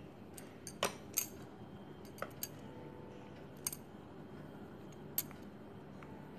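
A few light clinks and taps of a utensil against a glass and a metal tray as toppings are added to a glass of lassi. The two loudest come about a second in, and the rest are scattered and faint.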